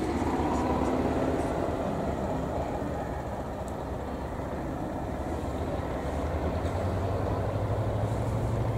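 PBY Catalina amphibian's twin radial engines running as it taxis, a steady low drone. The engine note grows louder and rises slightly in pitch near the end.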